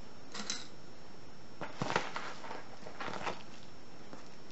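Metal lock picks clinking and rattling together as a handful is picked up and shuffled, in three short bursts of light clicks.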